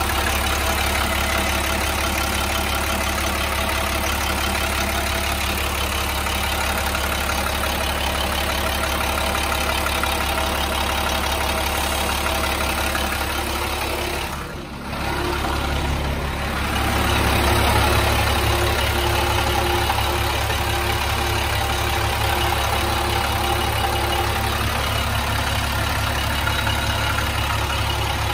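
A 2004 International 3000 school bus's diesel engine idling steadily. Its sound briefly dips about halfway through, then comes back a little louder.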